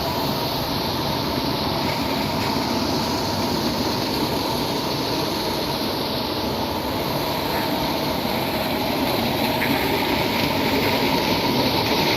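Spring water running steadily: a continuous rushing noise that grows a little louder near the end.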